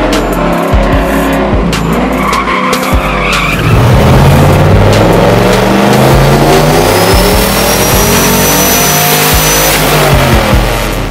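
Datsun 240Z engine at high revs with its rear tyres spinning and squealing in a burnout. From about four seconds in, the engine pulls up through the revs on a chassis dyno, rising steadily in pitch with a rising whine, and eases off a little after ten seconds.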